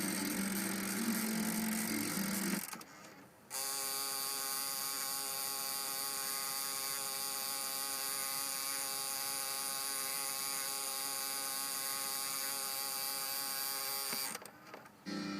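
Car cassette player mechanism making a steady, even grinding buzz for about ten seconds, like a starter motor short of power. It cuts out briefly before and after, with a rougher sound on either side.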